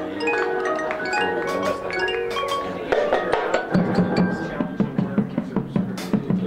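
Marching band front ensemble playing a rippling passage of mallet notes on marimbas and vibraphones. About three seconds in, low sustained notes enter under a steady percussive beat.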